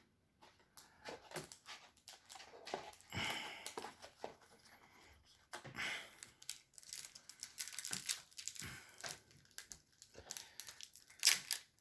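Trading cards and packaging being handled by hand: irregular rustling and crinkling in short bursts, with small flicks as cards are sorted and stacked.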